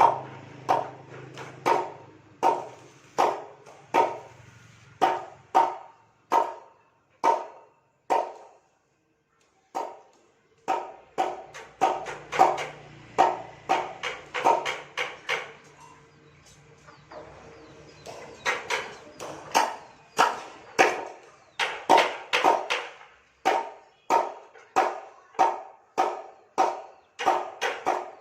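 A dog barking over and over in a steady rhythm, about one to two barks a second, falling silent for a second or two around nine seconds in, then carrying on.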